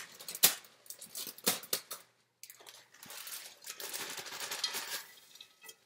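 A plastic bag of frozen spinach being handled and torn open, crinkling and rustling, with a few sharp clicks and taps in the first couple of seconds.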